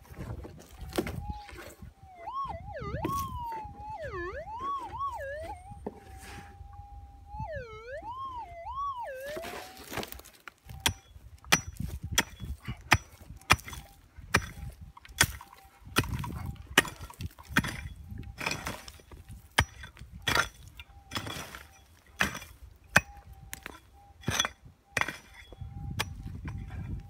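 Prospecting pick striking and scraping into hard, rocky ground, the blows coming about once or twice a second through the second half. In the first third the Minelab GPZ 7000 metal detector's target tone warbles up and down in pitch above its steady threshold tone as it sounds off a buried gold nugget.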